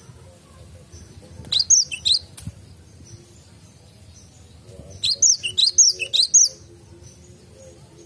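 Cinereous tit (gelatik batu) calling: short, sharp, high chirping notes, each sweeping down in pitch, in two bursts, three notes about a second and a half in and a quicker run of about six notes about five seconds in.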